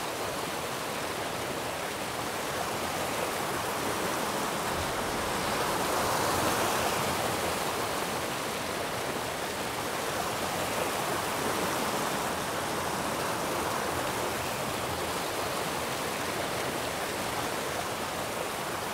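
Steady rush of flowing stream water, swelling slightly a few seconds in.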